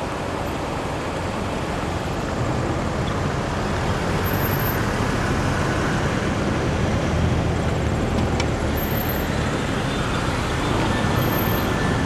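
Slow-moving car traffic: a steady rumble of engines and tyres that grows slightly louder about two seconds in.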